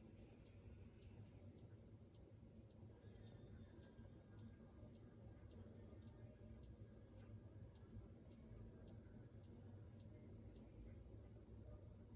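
Instant Pot electric pressure cooker beeping ten times, high and evenly spaced, about once a second. This is the signal that its cooking cycle has finished.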